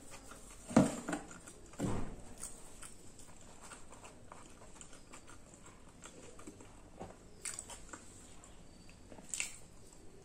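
Close-miked chewing and wet mouth sounds of a person eating puri with chickpea curry, with two louder smacks about one and two seconds in, then quieter chewing with small clicks and smacks.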